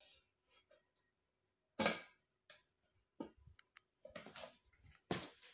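Stainless steel containers of a Cello tiffin lunch box clinking and knocking against each other as they are handled: one sharp clink about two seconds in, then a scatter of smaller taps and clicks.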